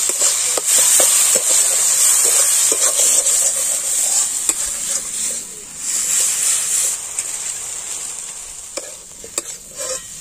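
Prawn and parwal stuffing sizzling in mustard oil in a metal kadai while a metal spatula stirs and scrapes it, clicking against the pan. The filling is being sautéed (kosha) until well cooked. The sizzle fades after about seven seconds, leaving a few sharp spatula knocks near the end.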